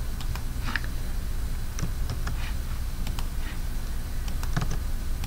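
Scattered clicks and taps of a computer keyboard and mouse, over a low steady hum.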